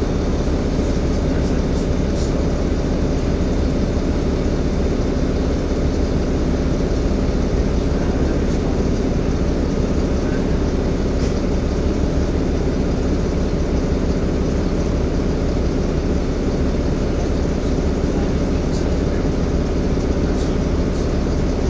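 Cabin sound of a Wright StreetCar (Volvo B7LA) articulated bus: a steady mechanical drone with several low, even hums from the engine and cooling fan, and a few faint, brief high squeaks.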